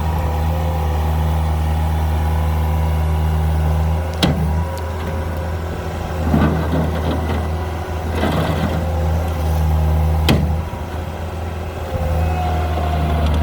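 Terex PT60 compact track loader's diesel engine running steadily while the machine is driven. There are two sharp knocks, about four seconds in and about ten seconds in, and some rattling noise in between.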